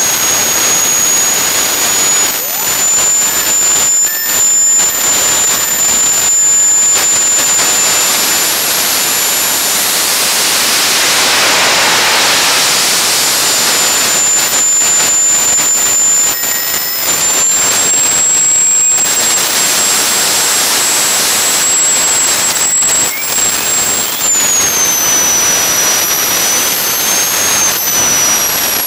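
Small turbojet engine on a test stand running at full throttle: a loud steady roar with a high-pitched turbine whine. Late on, the whine steps down in pitch as the engine eases back slightly.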